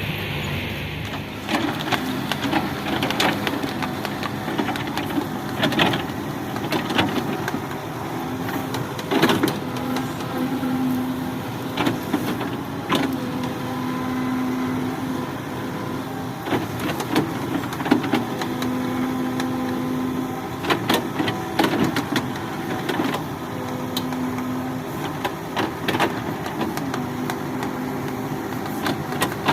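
Hydraulic excavator working: the diesel engine drones steadily, its tone swelling and easing every few seconds as the hydraulics take load, with frequent sharp clanks and knocks from the machine and its bucket.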